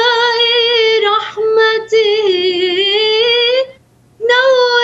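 A woman singing an Arabic hymn to the Virgin Mary unaccompanied, drawing one word out in long, wavering held notes, with a short pause for breath a little before the end.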